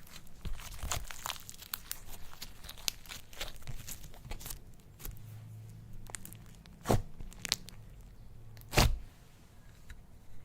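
Slime being handled and worked, giving many small crackles and clicks, with two louder pops about seven and nine seconds in.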